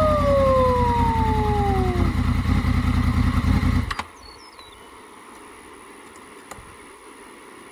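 Honda VFR800's V4 engine idling through a Delkevic aftermarket exhaust, then cut off abruptly about four seconds in. A long falling whistle-like tone sounds over the engine during the first two seconds, and a few faint high chirps follow the shut-off.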